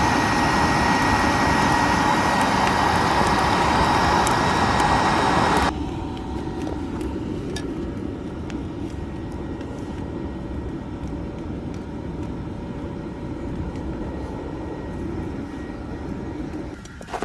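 An electric blower or fan runs steadily with a whine, fanning the wood fire, and cuts off suddenly about six seconds in. After that comes a lower, steady rumble with scattered faint crackles.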